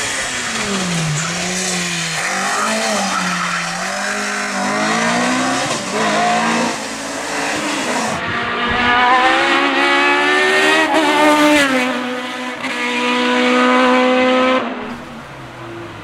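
Hillclimb race cars' engines at full throttle, revving up and dropping back with each gear change. About halfway through a second car takes over, its engine climbing in pitch through the gears before the sound falls away suddenly near the end.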